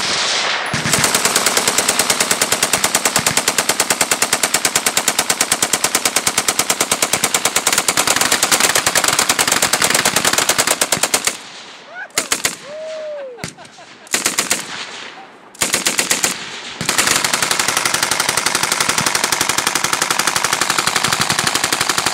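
Machine gun firing full-auto in a long, rapid, continuous burst. About eleven seconds in it breaks into a few short bursts, then runs continuously again from about seventeen seconds.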